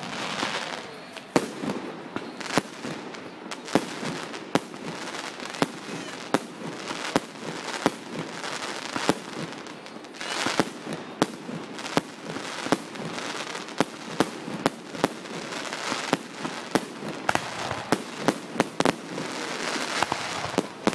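Aerial fireworks display: a steady run of sharp bangs from bursting shells, about one or two a second, over a continuous hiss, with the bangs and hiss thickest near the middle and again near the end.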